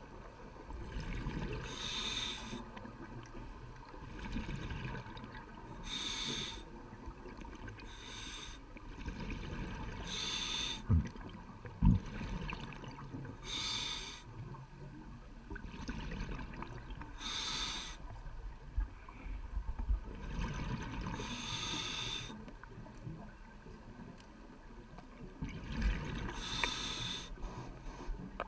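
Scuba diver breathing through a regulator underwater: a hissing inhalation every few seconds, about eight in all, with bubbling exhalations between. Two sharp knocks near the middle.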